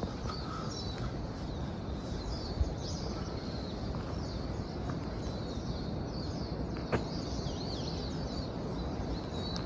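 Outdoor ambience: many small birds chirping over a steady background hiss, with a faint click about seven seconds in.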